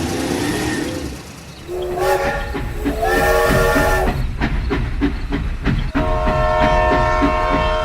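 A train horn sounds in two short blasts about two and three seconds in, then a long held blast from about six seconds, over a steady rhythmic clatter of train wheels on the rails.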